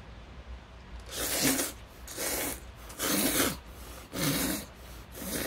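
A person slurping buckwheat noodles: five quick, noisy sucks of about half a second each, beginning about a second in.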